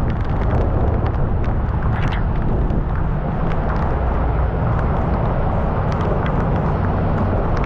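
Riding a scooter in heavy rain: a steady, loud rumble of wind buffeting the microphone over the running scooter, with many short ticks scattered through it from raindrops striking the microphone.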